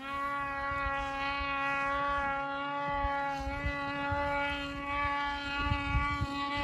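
Snowmobile engine held at steady high revs, a constant buzzing drone, with wind buffeting the microphone.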